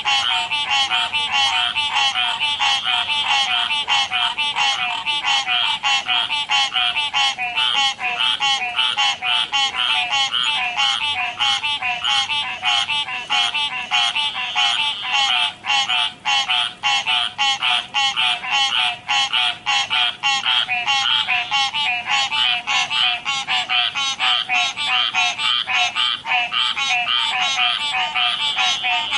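Chorus of frogs croaking, many short calls overlapping in a fast, even run that never lets up.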